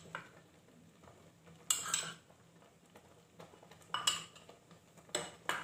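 Kitchen utensils and dishes clinking against a stainless steel cooking pot: a few short knocks in small clusters about two seconds in, around four seconds in and again near the end, with quiet between.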